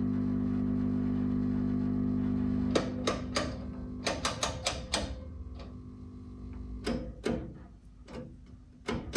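Valve tester humming steadily while an EL156 power pentode draws about 59 mA under test. About three seconds in the hum cuts off with a click, followed by a quick run of clicks from the tester's rotary switches being turned back.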